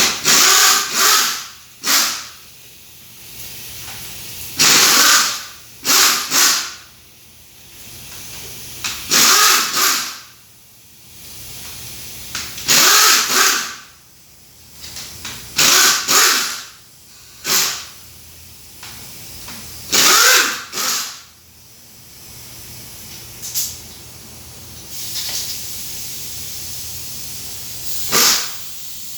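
Repeated short bursts from a compressed-air tool, each about a second long and often in pairs, coming every three to four seconds with a steady hiss between.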